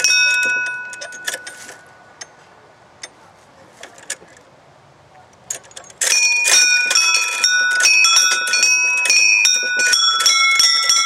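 Playground tubular chimes: hanging brass balls knocked against upright metal tubes, each strike ringing on as a clear tone. The ringing fades over the first two seconds, and a few light knocks follow. From about six seconds in comes a rapid run of many strikes with overlapping chiming tones.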